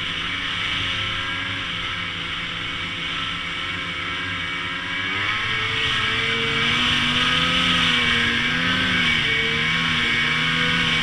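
Ski-Doo Summit 850 E-TEC snowmobile's two-stroke twin engine running under way. About five seconds in it picks up revs and gets louder, then holds higher with small rises and falls, over a steady hiss.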